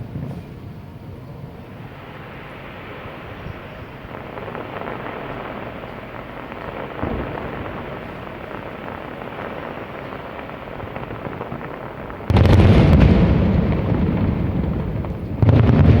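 Aerial fireworks shells bursting: a low ongoing rumble with a faint thud about seven seconds in, then two sudden loud booms, one about twelve seconds in and one just before the end, each dying away in a rolling echo.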